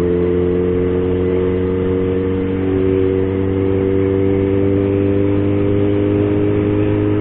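Yamaha XJ6's 600 cc inline-four engine running steadily under way, its pitch rising slightly about a third of the way in as the bike gathers speed.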